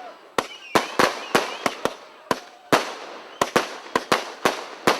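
Category F2 consumer fireworks bursting: a rapid, irregular series of sharp bangs, about a dozen in five seconds, with brief whistles about a second in.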